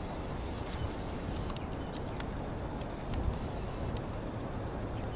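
Wind buffeting the microphone: a steady low rumble, with a few faint clicks scattered through it.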